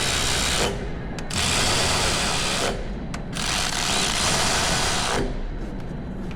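Power ratchet running bolts down snug into the crankshaft, in spurts of a second or two with short pauses between them: the first spurt stops early on, and two more follow.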